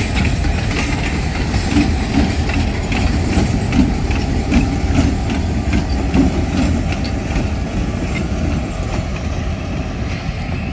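Two diesel locomotives passing close by at low speed: a deep, steady engine rumble with the clatter of wheels over rail joints. It eases off slightly near the end as the units move away.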